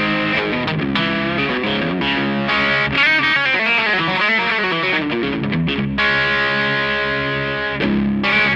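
Electric guitar (Fender Stratocaster in drop D) played through a DIY breadboard Tube Screamer overdrive with a JRC4558 op-amp into a Line 6 DT25 amp. Distortion and volume are all the way up and tone is halfway, giving heavily overdriven sustained chords and riffs, with wavering bent notes in the middle.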